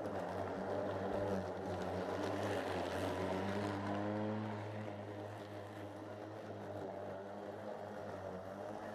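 Greenworks electric lawn mower running and cutting tall grass and dandelions: a steady motor hum with a rough cutting noise over it. It is loudest in the first half as the mower passes close, and a little quieter from about five seconds in as it moves away.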